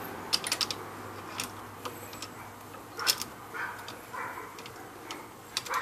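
Ratchet wrench clicking in short runs of sharp ticks as a rear brake bolt is run down snug, with a few single metallic clicks between runs.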